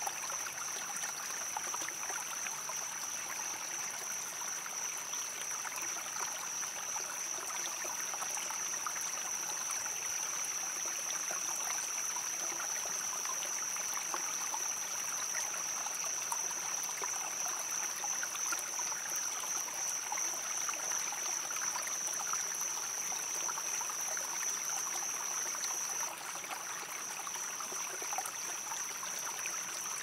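Flowing river water babbling steadily, with a continuous high-pitched cricket trill over it.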